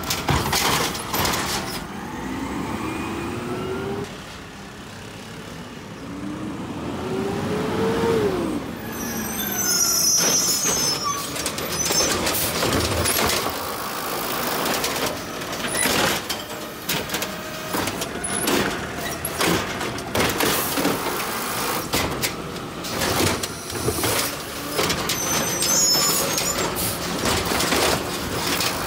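Automated side-loader garbage truck working its hydraulic lifting arm over its running engine. A hydraulic whine rises twice in the first eight seconds, the second time climbing higher before dropping off sharply. After that comes a string of knocks and bangs from the plastic wheeled recycling carts being gripped, dumped and set down.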